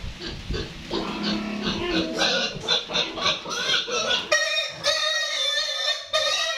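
A young boar squealing in distress as it is seized and held up by its hind legs for castration: short repeated squeals at first, then loud, unbroken squealing from about four seconds in.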